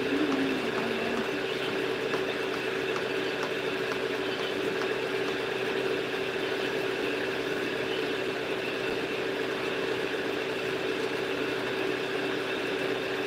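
Steady mechanical hum with one strong constant tone, unchanging throughout.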